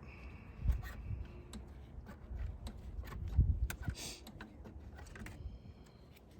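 Scattered light clicks, taps and knocks of parts and tools being handled during hands-on work in an engine bay, with a brief scraping rasp about four seconds in.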